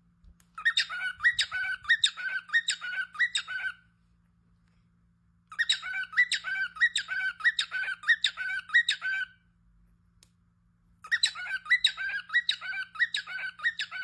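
A bird calling in three bouts of rapid, repeated high notes, about three a second, each bout lasting three to four seconds with short pauses between.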